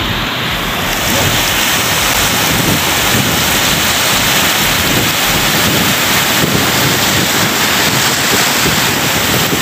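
Small waves breaking and washing up the shallows in a loud, steady rush, with wind buffeting the microphone as a low rumble.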